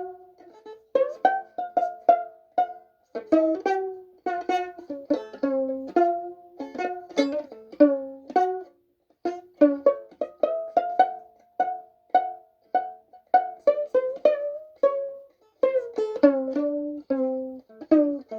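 Violin played pizzicato: a slow melody of single plucked notes, each starting sharply and fading quickly, with two short pauses.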